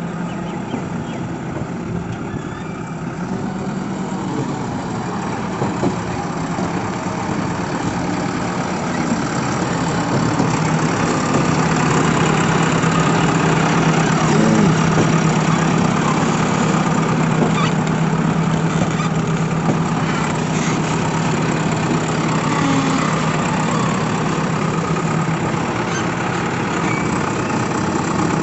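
Diesel engine of a JCB 3DX backhoe loader running steadily, getting louder over the first ten seconds or so and then holding level.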